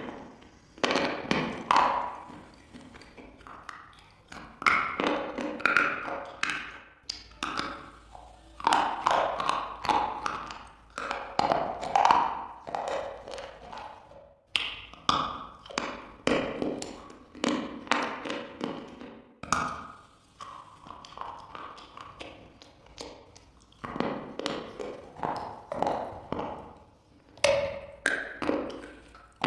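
Close-up crunching and chewing of a hard, crunchy food: sharp bites followed by runs of crunchy chews, repeating every second or two.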